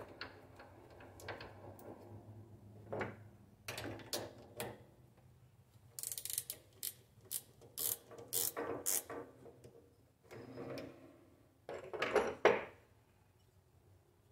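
Metal lathe being handled: a series of sharp metallic clicks and clanks from its hand controls and chuck as the finished cylinder is taken off, densest about six to nine seconds in, with a louder clank about twelve seconds in. A faint low steady hum runs underneath.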